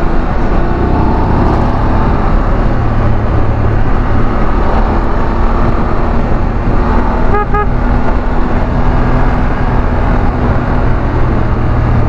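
BMW F 850 GS parallel-twin engine running steadily at cruising speed under heavy wind rush. A quick double beep of a horn comes about seven and a half seconds in.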